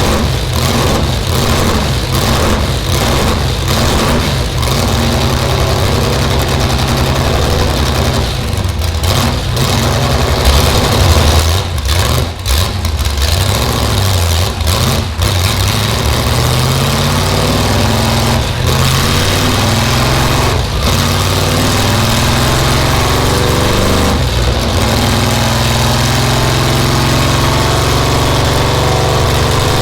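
Chevrolet small-block V8 of a Lola T70, about 500 hp, running loud on a chassis dyno. In the first half it is blipped with repeated short dips. Through the middle its pitch climbs in steps, then it holds a steady higher speed.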